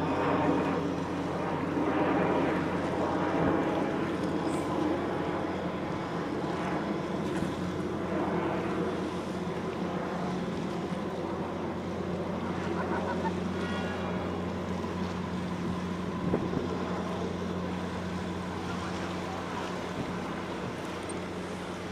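Steady low hum of a large container ship's engines as it passes close by, with wind on the microphone and waves on the water.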